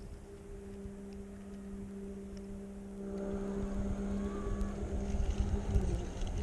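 A boat motor hums steadily at one pitch, then falls away near the end, while low wind rumble on the microphone builds from about halfway through, with faint ticks over it.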